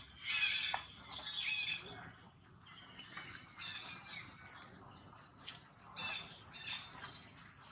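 Long-tailed macaques giving high-pitched squealing calls, loudest in the first two seconds, then shorter, fainter calls.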